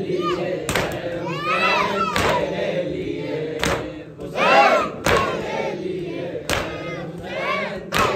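A group of men and boys chanting a noha together, with a unison chest-beating (matam) slap about every one and a half seconds, six strikes in all.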